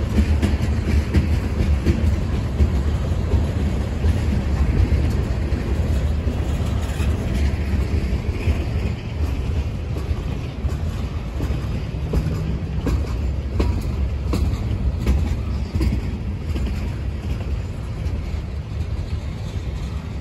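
Freight train of tank cars rolling past, its steel wheels rumbling steadily on the rails, with scattered sharp clicks from the wheels.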